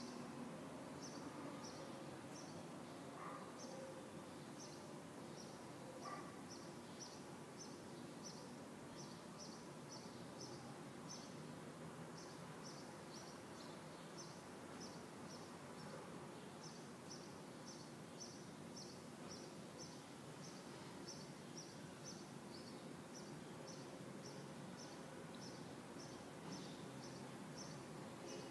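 Faint ambient background noise with a steady series of short, high chirps repeating about one to two times a second throughout.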